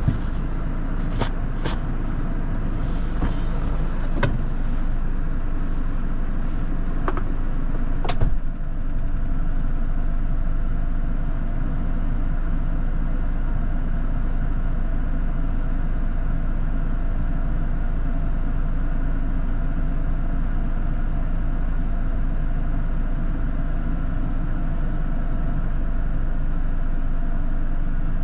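A 4x4 vehicle's engine running steadily while driving off-road, with several sharp knocks and rattles during the first eight seconds, the loudest about eight seconds in.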